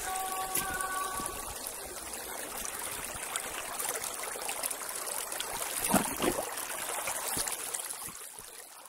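Running water of a stream, an even rushing noise, with a brief louder sound about six seconds in. It fades away near the end.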